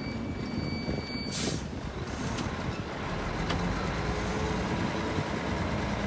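Heavy diesel earthmoving machinery running steadily. A thin high whine cuts off about a second and a half in with a short burst of hiss.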